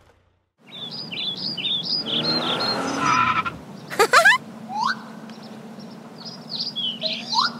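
Cartoon sound effects: birds chirping over the running hum of a vehicle engine, with a quick sweeping whoosh about four seconds in and a couple of short rising whistles later.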